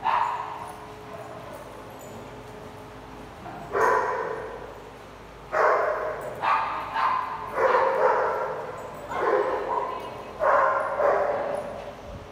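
Dogs barking during rough play: a single bark at the start, another about four seconds in, then a quick run of about ten barks with short gaps, echoing in a large hard-floored room.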